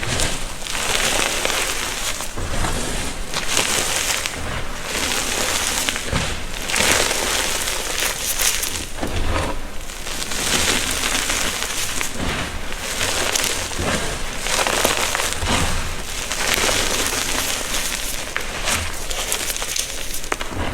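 Gym chalk being crushed and crumbled, a run of dry crunches and crumbling crackle that swells and eases roughly every second.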